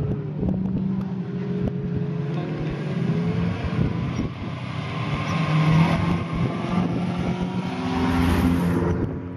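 First-generation Renault Clio's four-cylinder engine running as the hatchback pulls away and accelerates. It passes close by near the end, with engine and tyre noise swelling.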